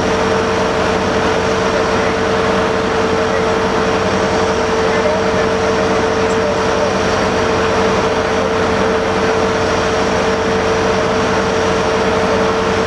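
Narrow-gauge diesel locomotive No. 19 idling close by: a steady engine drone with a constant whine on top, unchanging throughout.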